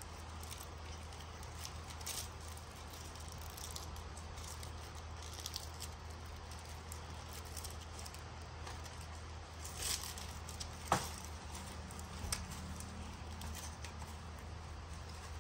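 Paper and cellophane rustling and string handled as hands tie the wrapping around a homemade firework, with scattered small ticks and a sharp click about eleven seconds in. A steady low hum runs underneath.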